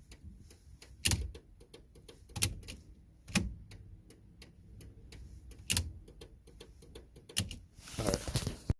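Irregular light clicks and taps of hard plastic parts being handled, with a few louder knocks, as a turn-signal lamp and its housing are worked on by hand.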